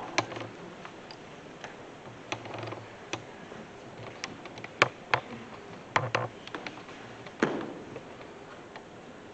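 Scattered, irregular light clicks and knocks: footsteps on the floor and a microphone on its stand being handled. A louder bump comes about seven and a half seconds in.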